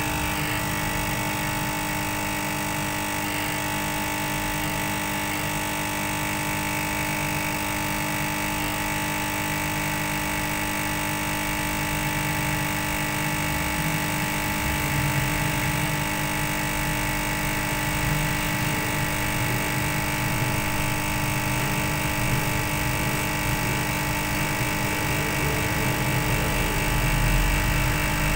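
Hot air rework gun blowing steadily from beneath a phone's circuit board, heating the solder to lift off a broken charging jack.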